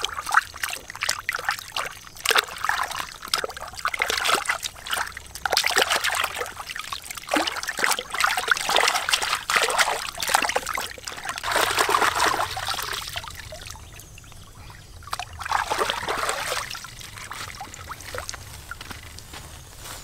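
Water splashing, sloshing and trickling in irregular bursts, fading to a quieter stretch near the end.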